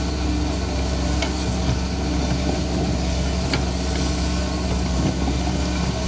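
Kobelco hydraulic excavator's diesel engine running steadily under load as it digs earth, with a couple of short sharp clicks from the working machine.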